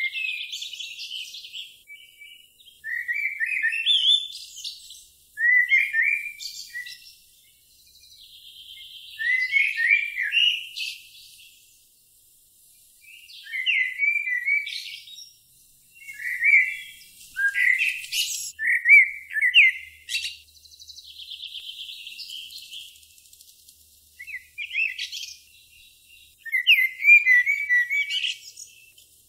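A songbird singing short, high-pitched warbling phrases every few seconds, with quiet pauses between them.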